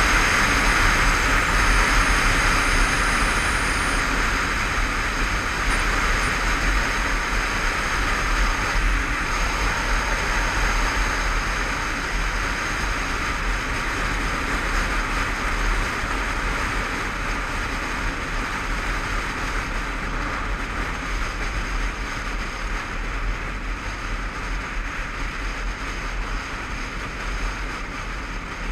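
Steady wind rush over a helmet-mounted camera on a Honda CBF500 motorcycle at road speed, with the engine and tyre noise underneath. It eases slowly toward the end.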